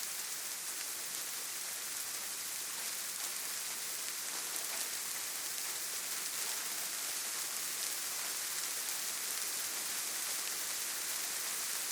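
Steady rain falling: an even, unbroken hiss weighted toward the treble, with no single drops standing out.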